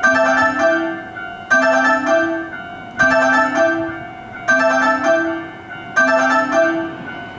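Electronic warning chime repeating about every second and a half, each ring a two-note figure, warning of a train about to pass through the station without stopping.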